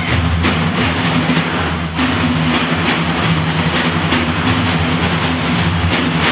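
An ensemble of large frame drums played by hand in unison, giving a dense, steady rumble under a driving beat of sharp strokes.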